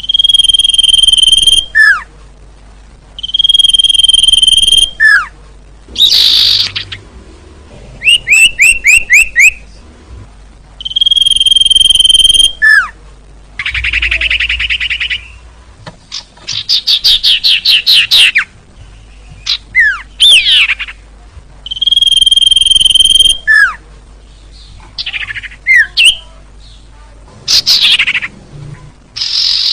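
Recorded calls of the sirtu bird played as a lure. Long steady high whistles, each ending in a quick falling note, alternate with fast trills and sweeping notes, in loud phrases separated by short pauses.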